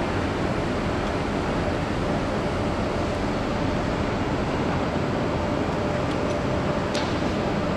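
Steady outdoor ambient noise of the shipyard area: an even hiss and rumble with a faint steady hum, and a couple of small clicks near the end.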